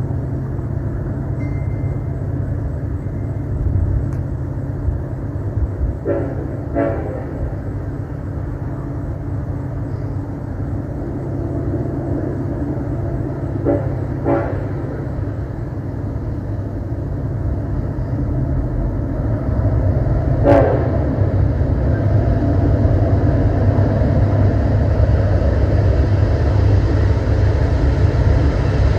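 EMD SD70ACe locomotive's Nathan K5LLA five-chime air horn giving short, clipped toots: two about six seconds in, two more around fourteen seconds, and one near twenty seconds. Under them is the steady low rumble of the train, which grows louder in the last third.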